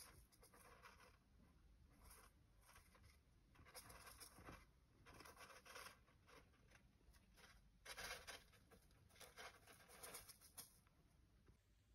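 Faint scratching and rustling from a small pet rodent moving in the wood-shavings bedding of its wire cage, in short scratchy bursts several times over.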